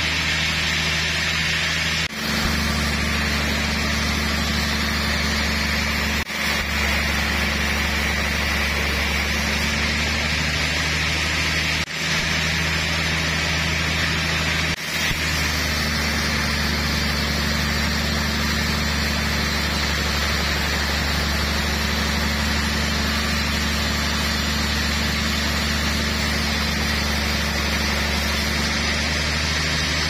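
Band sawmill running steadily as it slabs a trembesi (rain tree) log: a low, even machine drone under the hiss of the blade cutting the wood, with a few very short dips.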